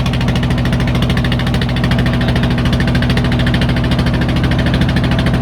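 Small boat engine running steadily at a constant speed, with a fast, even pulse.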